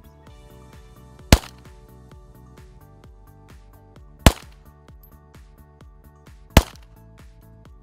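Three semi-automatic pistol shots, each a sharp crack, spaced two to three seconds apart, with bullets striking a playing-card target on a wooden board. Background music with a steady ticking beat runs underneath.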